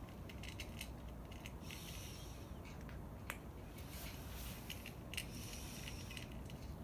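A cat chewing its food, with short bursts of crisp crunching clicks, several groups a second or so apart.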